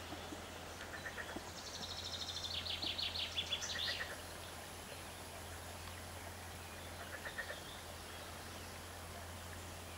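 Outdoor meadow ambience: a small songbird sings a fast phrase of quick repeated high notes from about one and a half to four seconds in, with short softer note groups near the start and about seven seconds in, over a steady low hum.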